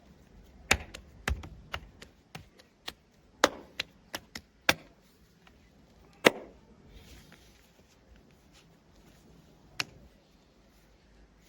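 Sharp cracks from a manual body-cracking session, about a dozen in a quick irregular run, the loudest one about six seconds in, then a single crack near the end.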